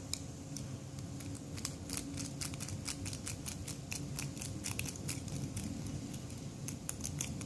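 Lock pick working the pin tumblers of a Dongchang padlock under tension: a run of small, irregular metallic clicks as the security pins are raked and set.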